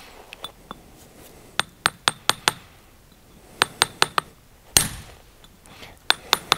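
Hammer striking a steel stone-splitting chisel (Sprengeisen) set on a paving stone to split it: sharp, ringing metal-on-metal clinks in quick groups, about five, then four, then one heavier blow, then three more near the end.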